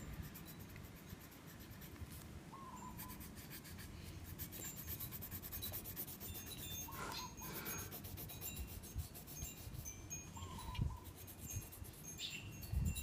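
Faint rubbing of a child colouring a drawing on paper. Short high chime-like tones sound now and then, with a brief chirp every few seconds.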